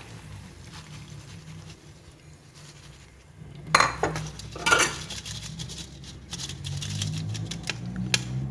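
A wire spider strainer and a perforated aluminium colander clinking and scraping against a wok while fried banana chips are lifted out of the oil, with two sharp clatters about four and five seconds in and smaller clinks near the end.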